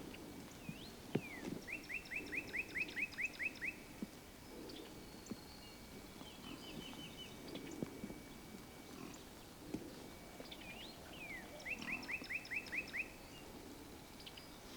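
A songbird sings twice, about ten seconds apart. Each time a quick slurred note is followed by a fast run of eight to ten sweeping notes. Soft low rustling and grunt-like sounds lie underneath.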